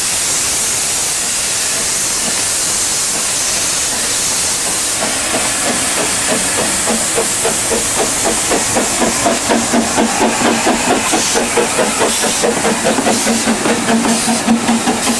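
Narrow-gauge steam train hissing steam as it stands, then getting under way: from about five seconds in, a regular rhythmic beat sets in under the hiss and grows louder as the train moves off.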